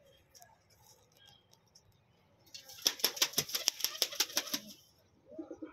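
A pigeon flapping its wings in a quick run of sharp claps, about two seconds long, starting midway. Faint chirps come before it, and a pigeon's low cooing starts near the end.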